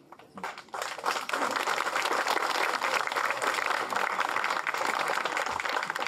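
Audience applauding: many hands clapping in a dense patter that begins about a second in and holds steady.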